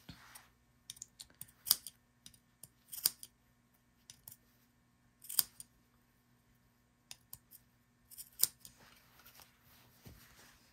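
Fabric scissors snipping into the curved seam allowance of a sewn neckline facing, so that it lies flat. The cuts are sharp, irregular snips a second or two apart, with short pauses between.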